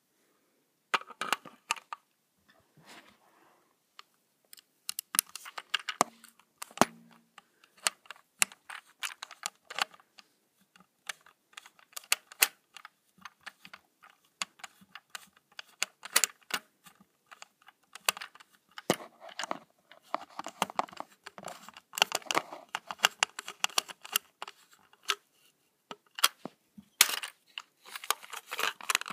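Irregular plastic clicks and rattles from handling the battery-powered motor car of a Plarail toy train, its battery compartment open.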